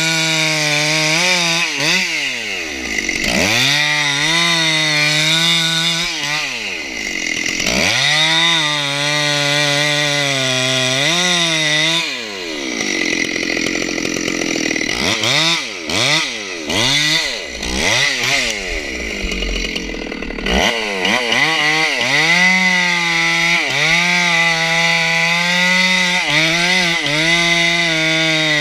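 Stihl 064 two-stroke chainsaw cutting into the base of a redwood at full throttle, the engine dropping in pitch and climbing back again several times in the first two-thirds, then running steadily in the cut.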